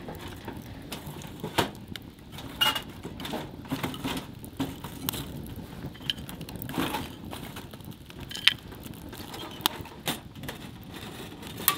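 Wood fire crackling in a small wood-burning camp stove, with irregular sharp pops and snaps over a low, steady sound of burning.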